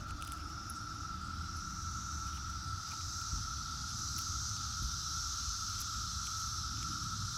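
Brood X periodical cicadas chorusing: a continuous, steady drone at one pitch with a higher hiss above it, over a low rumble.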